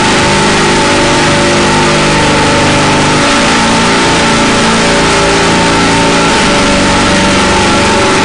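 Harsh noise drone music: a loud, unbroken wall of distorted noise over layered low droning tones, which shift to new pitches about three seconds in and again near six seconds.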